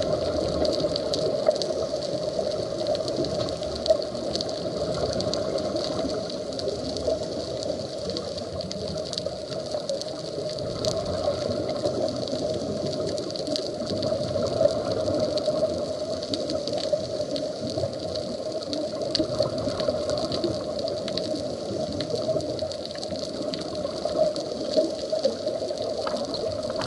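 Steady underwater rushing noise picked up by a diving camera on a coral reef, with scattered faint clicks through it.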